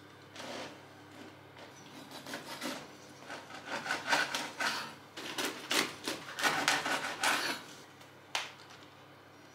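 A knife sawing back and forth through the crust of a large crusty bread-roll sandwich on a wooden cutting board, a run of scraping strokes that grow louder in the middle. A single sharp knock follows near the end.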